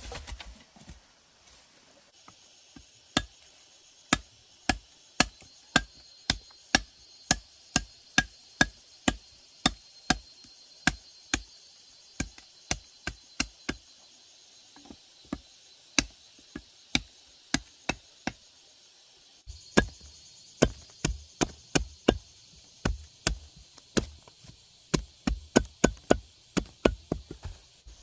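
Repeated chopping blows into wood, about two strokes a second, with insects droning steadily in the background.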